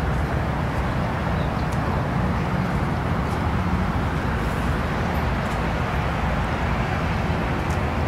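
Steady low rumble of a moving vehicle, heard from on board as it drives along.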